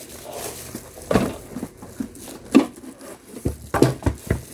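Knocks and taps of a humidifier's parts being handled, with a quick run of sharper knocks near the end.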